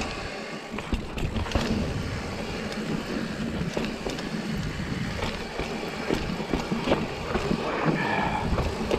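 Ibis Ripmo AF mountain bike rolling along a dirt singletrack: steady tyre noise on the dirt, with frequent small clicks and rattles from the bike over bumps.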